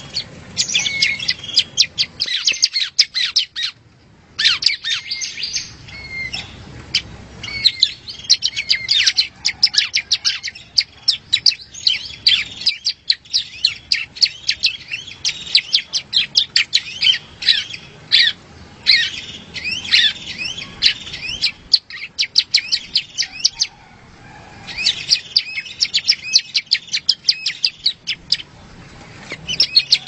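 Prenjak, a small songbird, singing: fast runs of sharp, high chirps, many a second, broken by a few short pauses.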